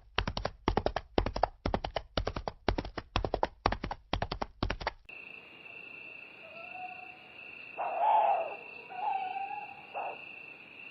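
Footsteps, about three a second, for the first five seconds, then a cut to a forest night ambience: a steady high insect-like whine with a few short hooting calls like an owl's.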